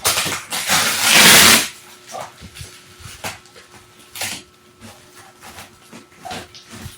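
Cardboard shipping box being opened: a loud ripping, scraping noise for about the first second and a half, then scattered rustles and knocks of the cardboard being handled.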